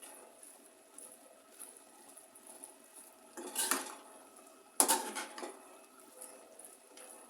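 A spoon scraping and clattering in a kadhai about three and a half seconds in, then a sharp metal clank with a short ring about a second later, with faint clicks between.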